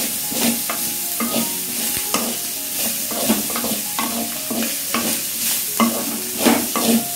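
Wooden spatula scraping and knocking against a metal kadai as chopped vegetables and shredded chicken stir-fry in oil, with a steady sizzle under the repeated strokes.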